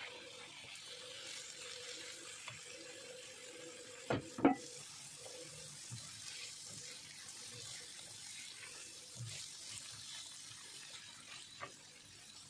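Onion, carrot and diced red bell pepper sizzling gently in a frying pan, with two sharp knocks against the pan about four seconds in and light clicks of a spatula stirring the vegetables.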